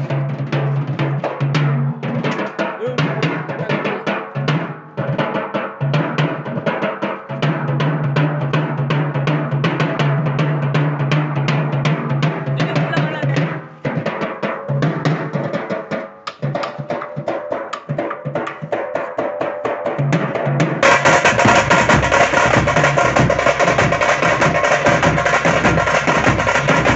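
Tamate frame drums played together in a fast, dense rhythm, with a steady low tone beneath that drops out now and then. About 21 seconds in, the sound turns fuller and louder.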